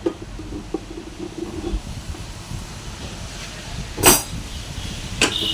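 Spanner work on a scooter's body bolts: two sharp metal clacks about a second apart near the end, over a low steady rumble.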